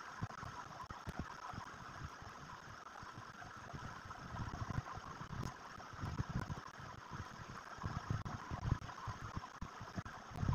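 Chalk drawing on a chalkboard: irregular soft knocks and rubs of the chalk and hand against the board, busier from about four seconds in, over a steady background hiss.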